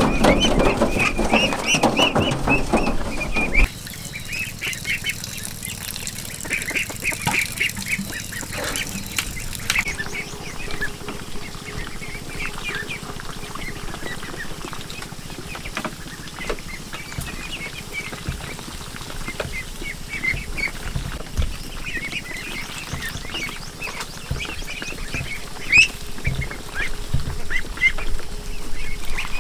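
Birds calling, many short high chirps repeated throughout; the first few seconds are louder with a rushing noise underneath, which drops away abruptly.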